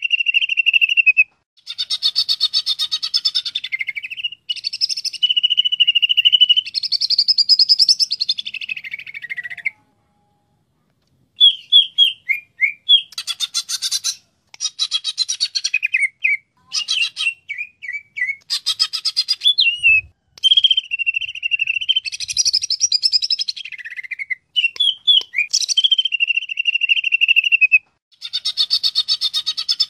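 Cucak ijo, a green leafbird, singing in varied phrases. Long held whistled notes alternate with fast, dense chattering trills, and there is a short pause about ten seconds in.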